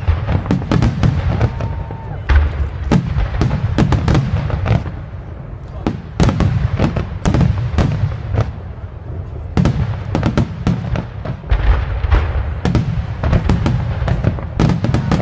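Aerial firework shells bursting in quick succession: a dense run of booms and sharp bangs, many per second, over a steady low rumble.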